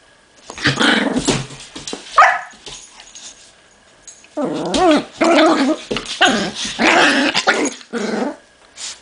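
Pit bull and chihuahua play-fighting, growling and barking in two spells: one starting about half a second in, a pause, then a longer one from about four and a half seconds in.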